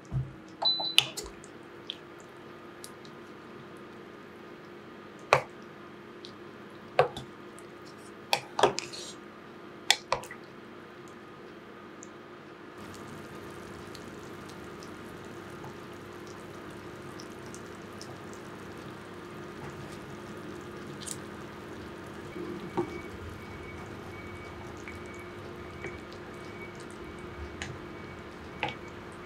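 Kitchen sounds: scattered sharp clicks and knocks of utensils and dishes over a steady low hum, with a faint water sound.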